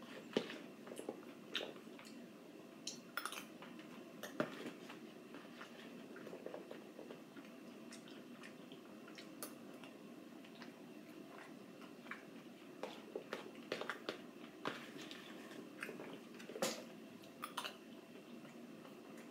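A metal spoon clicking and scraping against a plastic tub while blueberries are scooped out and eaten, with soft chewing. Irregular light clicks throughout, a couple of sharper ones about four and seventeen seconds in.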